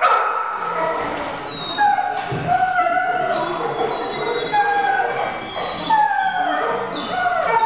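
Working-line German Shepherd puppies yipping and whining while they tug together at a rag toy: many short cries, mostly falling in pitch, overlapping one another.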